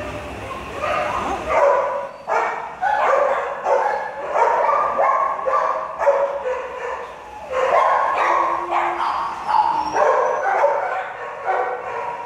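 Dogs barking and yipping in a shelter kennel, short pitched barks following one another about once or twice a second.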